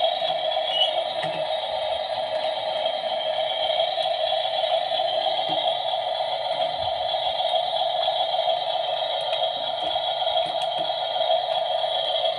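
Steady, even whirring drone from a 1/16 scale RC excavator model, with a few faint clicks.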